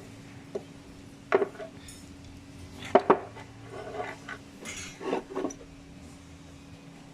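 Light clicks and clinks of small hard tweeter parts being handled and fitted together while a car tweeter is reassembled after a voice-coil change, about six separate taps spread over several seconds.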